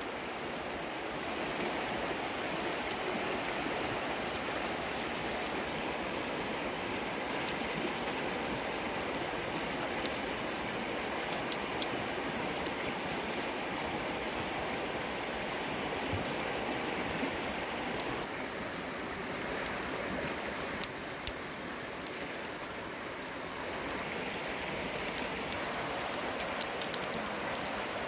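Steady rush of a shallow river running over rocks, with scattered sharp crackles from a wood campfire, more of them near the end.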